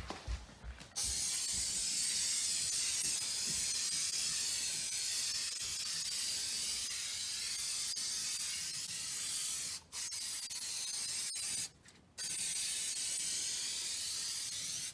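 Aerosol can of 3M Super 77 spray adhesive spraying in steady hisses: one long spray of about nine seconds, then two shorter sprays with brief breaks between.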